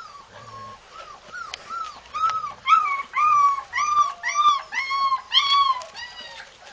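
A dog whining in a run of short, high, rising-and-falling cries, about two or three a second, louder in the middle and trailing off near the end.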